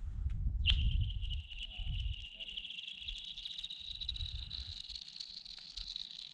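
A piece skipped across frozen river ice: a sharp strike on the ice about a second in, then a long high-pitched ringing whine from the ice, peppered with quick ticks as the piece skitters along, its pitch creeping slowly upward.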